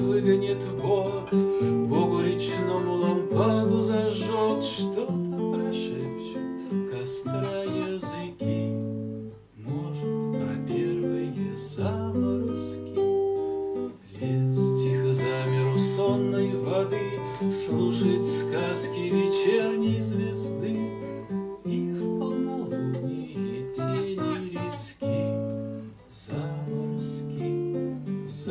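Nylon-string classical guitar, strummed and picked in a steady accompaniment, with a man singing a slow song over it. There are short pauses between phrases.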